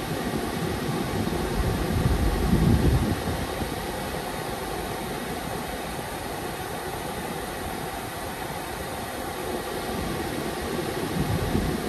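The BMW X5's climate-control blower is running, with cool air rushing steadily out of the dash vents and the engine idling underneath. A low rumble swells briefly about two seconds in and again near the end.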